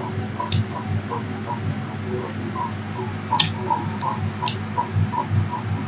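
Hands mixing rice and curry on steel plates, with soft repeated ticks and a few sharp clinks of fingers against the metal, over a steady hum.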